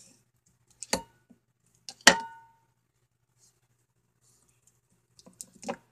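Two sharp knocks of hard objects about a second apart, the second and louder one with a short ringing clink; a few faint clicks near the end.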